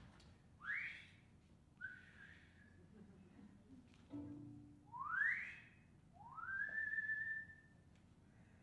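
Four whistled calls with pauses between them, most sliding upward in pitch; the last rises and is held for about a second.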